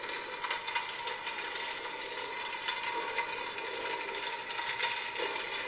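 Idle hum of Novastar's 'Phoenix Pyre' fire-sword lightsaber sound font: a steady hiss-like hum with a faint tone underneath, full of small crackling clicks like fire.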